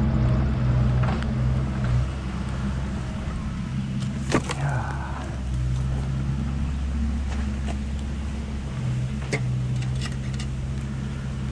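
An engine idling steadily, a low even hum, with a few scattered light clicks and a brief scrape about four seconds in.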